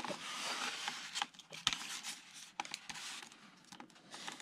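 Handling noise from a foam RC airplane fuselage being turned over in the hands: a rustling rub in the first second or so, then scattered light clicks and knocks, quieter after about three seconds.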